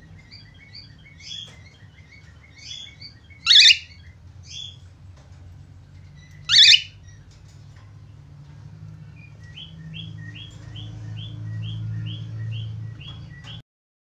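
Cockatiel chirping in short repeated notes, with two much louder calls about three and a half and six and a half seconds in. Toward the end it chirps in an even run of about ten notes, about two a second, then the sound cuts off suddenly.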